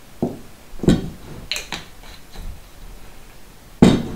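Tableware knocking and clinking on a table: four or five sharp knocks, the loudest near the end.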